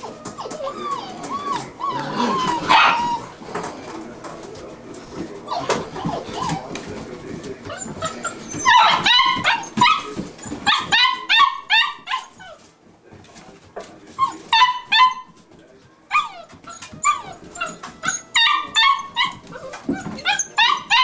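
Flat-coated retriever puppies whining, with longer wavering cries in the first part, then from a little under halfway in, quick runs of short high yelps, several a second.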